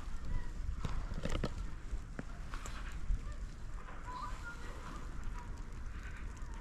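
Footsteps crunching in fresh snow at a walking pace, with wind rumbling on the microphone.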